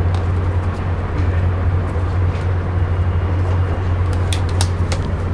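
A steady low hum over a noisy background rumble, with a few light plastic clicks about four seconds in from a collapsible silicone bottle's lid being handled.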